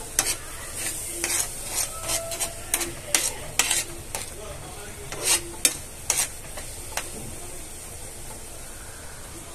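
Steel spoon stirring and scraping thick mango purée around a nonstick frying pan, with a low sizzle as the sweetened pulp cooks down to drive off its water. Frequent scrapes and clicks for the first seven seconds or so, then mostly the steady sizzle.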